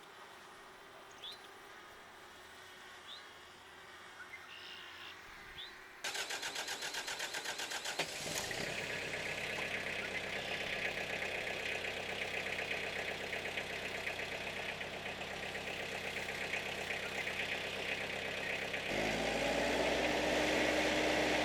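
A few faint bird chirps, then a Tafe tractor's diesel engine is cranked on the starter for about two seconds, catches and runs steadily. Near the end it gets louder as it is throttled up.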